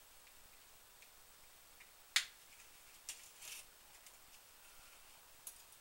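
Paper piercer working small pieces out of die-cut cardstock: one sharp click about two seconds in, then a few faint ticks and a brief papery rustle.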